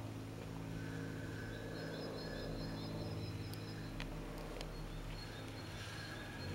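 Light single-engine propeller aircraft flying over, its engine and propeller making a steady drone. A bird chirps faintly and repeatedly over the first few seconds.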